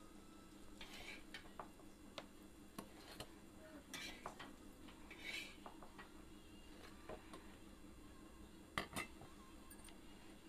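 Flat steel spatula scraping and clinking against a black iron tawa as fried slices are lifted off, in scattered short strokes with a few brief scrapes. Two sharp clicks near the end are the loudest. A faint steady hum runs underneath.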